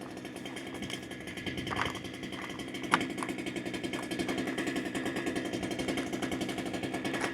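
Holzfforma G395XP chainsaw, a Husqvarna 395XP clone with a two-stroke engine, idling steadily, with a couple of short sharp clicks about two and three seconds in.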